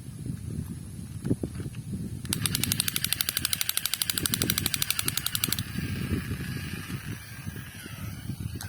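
Toy gun firing a rapid machine-gun rattle, an even stream of clicks at about a dozen a second, for about three seconds starting some two seconds in. A few light knocks come before it.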